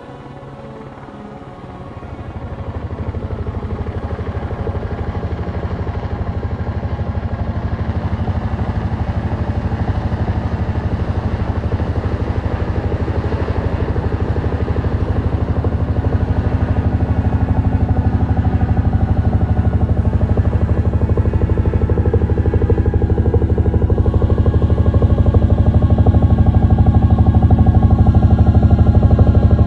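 Helicopter-style rotor chop from the Roton's landing rotor, a fast, steady beating that comes in about two seconds in and grows gradually louder as the craft descends to land.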